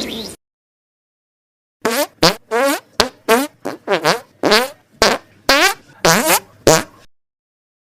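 Fart sound effect: a rapid string of about a dozen short, pitched toots, each bending up or down in pitch. It starts about two seconds in and stops about a second before the end.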